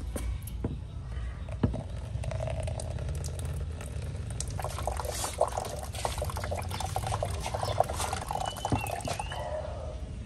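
Coconut water pouring in a thin stream from a hole in a coconut into a plastic cup, splashing steadily from about two seconds in until near the end. A couple of sharp knocks come in between.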